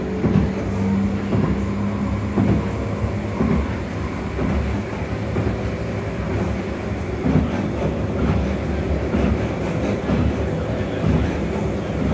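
CAF Urbos 3 tram running between stops, heard from inside the car. A steady traction-motor tone sounds for the first two seconds or so, over a continuous rumble of wheels on rail with scattered knocks and clicks.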